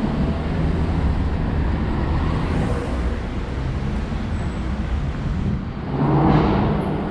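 Street traffic: engines of passing cars and vans running steadily, with one vehicle passing close and loudest about six seconds in.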